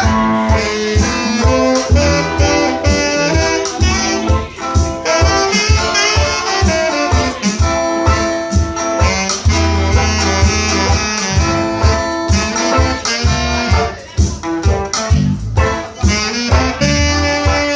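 Live reggae band playing an instrumental passage with a saxophone lead over guitar, bass and drums, with a steady beat.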